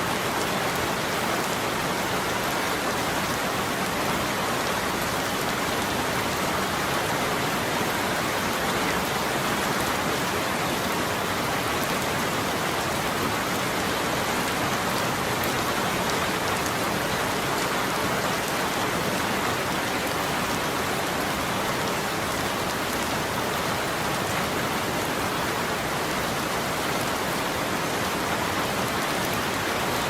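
Steady rain falling and pattering on a surface, an even hiss of drops with no change in strength.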